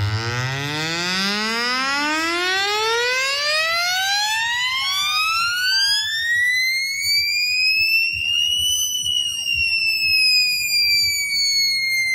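Electronic sweep tone played through a DJ sound system: one long buzzy tone rising steadily from deep bass to a high pitch over about nine seconds, then slowly sliding back down a little.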